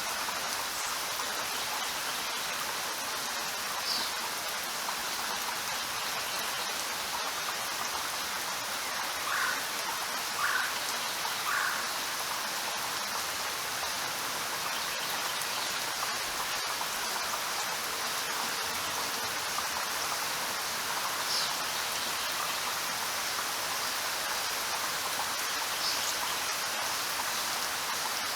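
Steady rain falling, an even hiss. A few brief sharper sounds stand out over it, three of them about a second apart near the middle.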